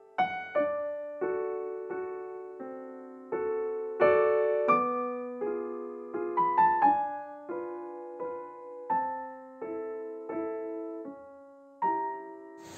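Background music: a slow solo piano melody, single notes and chords struck about once a second and left to fade.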